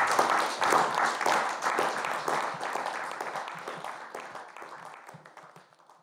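Audience applauding, a dense patter of many claps that dies away steadily and stops near the end.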